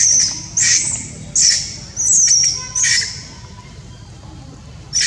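Baby macaque screaming in a quick string of shrill, high-pitched cries, about five in the first three seconds, then a pause of nearly two seconds.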